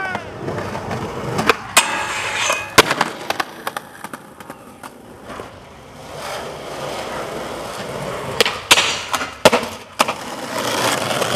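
Skateboard wheels rolling on rough pavement, broken by several sharp clacks of the board hitting the ground as tricks are popped and landed.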